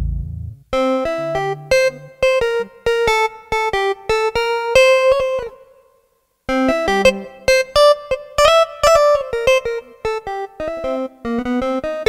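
Roland GR-20 guitar synthesizer's "Pulse E.P" electric piano patch, played from a MIDI guitar: fast melodic runs of struck notes. The runs break off for under a second about halfway, then pick up again.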